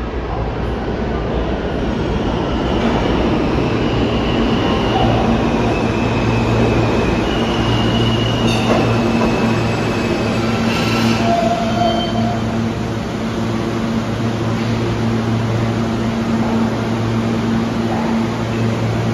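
Alstom R160A-1 subway train pulling into an underground station and braking to a stop. Wheels run on the rails under a steady low hum. Brief high-pitched whines and squeals come and go during the first half of the braking.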